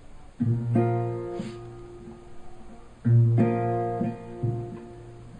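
Recorded folk music with a guitar strumming chords and letting them ring, two strong strums about three seconds apart with lighter ones between, played from CD through a Panasonic RX-EX1 portable stereo's speakers.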